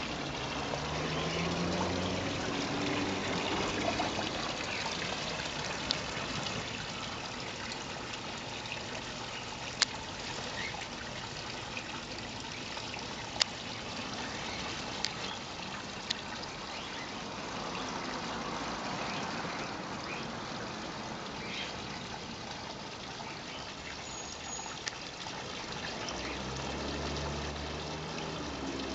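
Water splashing and trickling steadily from a small stone waterfall spout into a garden pond. A low engine hum rises near the start and again near the end, and there are a few sharp clicks.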